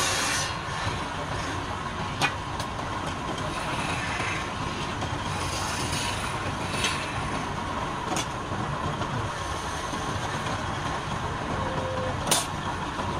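Wood lathe running steadily with a faint hum, broken by a few sharp clicks, the loudest near the end.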